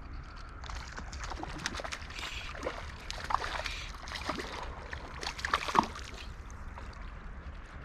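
Splashing at the river surface in irregular bursts, with short gurgles and sharp slaps, as a hooked trout thrashes. A steady low rumble of moving water and wind lies underneath.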